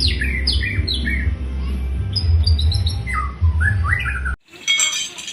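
Songbird chirping in quick notes that fall in pitch, again and again, over a low steady hum. It cuts off suddenly about four seconds in, and a brief high clinking follows.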